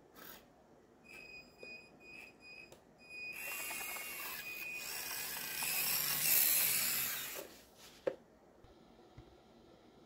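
Several short electronic beeps, about two a second, then the radio-controlled toy skid steer's small electric drive motors and gears whining loudly as it drives across the carpet. The whine stops sharply, followed by a single click.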